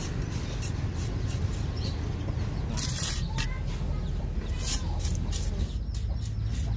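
Small steel trowel scraping and smoothing wet cement on the inner wall of a stove mould: short scrapes two or three a second, with a couple of longer strokes, over a steady low rumble.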